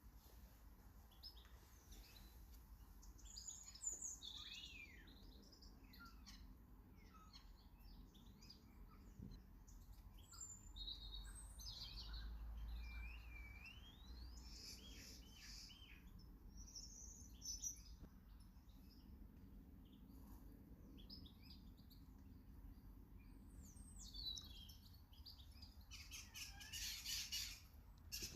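Small garden birds chirping and calling, faint, with many short notes and sweeping calls scattered throughout, and a louder run of calls near the end.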